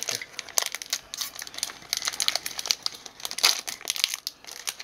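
Crinkly Twozies blind-bag wrapper crumpling and crackling in the hand as the toy box inside is pulled out, in quick irregular crackles.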